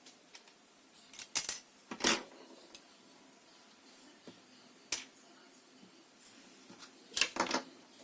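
Scattered sharp clicks and clacks of small hard parts or tools being handled: a pair about one and a half seconds in, a louder one at about two seconds, one near five seconds, and a quick cluster near the end.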